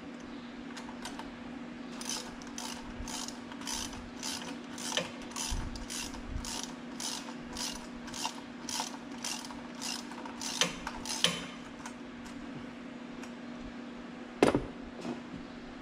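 Hand ratchet clicking in short strokes, about two clicks a second for some ten seconds, as a pipe clamp on the tractor's engine is worked loose. A steady low hum runs underneath, and a sharp knock comes near the end.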